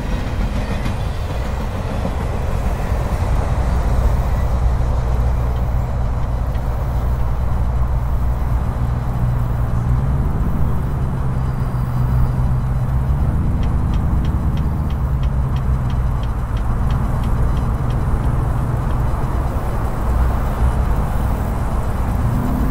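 Tail end of a freight train's autorack cars rolling past, followed by a steady low rumble.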